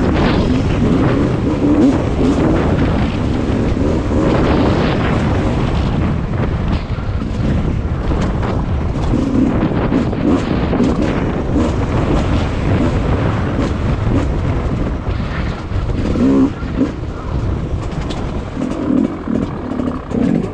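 Off-road enduro motorcycle engine running as the bike is ridden along a trail, its revs rising and falling.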